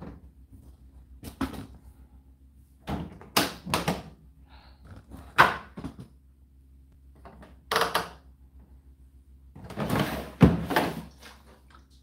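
Indesit condenser tumble dryer running with a steady low hum, while a series of sharp knocks and clatters from hands handling the machine and the cabinet around it come at irregular intervals, loudest around ten to eleven seconds in.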